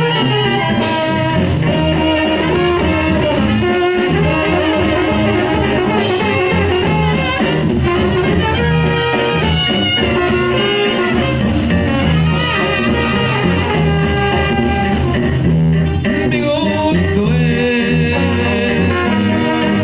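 Live Mexican banda brass band playing an instrumental passage: trumpets and trombones carry the melody over a tuba bass line, with drums.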